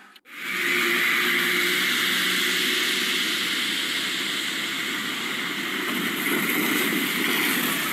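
Steady traffic noise on a flooded road: vehicle engines and tyres running through standing water, growing a little louder about six seconds in as a loaded truck drives through the water and throws up spray.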